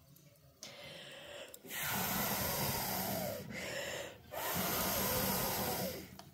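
A person blowing hard on the glowing embers of a wood fire to get the kindling to catch: a softer blow, then two long, strong breaths with short pauses between them.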